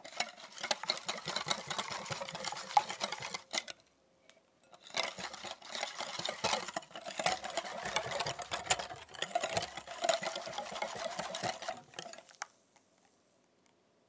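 Stainless wire whisk beating a thin egg-yolk and milk mixture in a glass bowl, with fast rattling clicks of the wires against the glass. It goes in two spells, a short one, a brief pause, then a longer one that stops about twelve seconds in.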